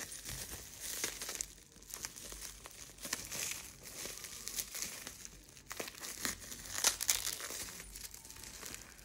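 Plastic bubble wrap crinkling and rustling as it is pulled off a small cup by hand, in irregular crackly bursts with sharp little clicks.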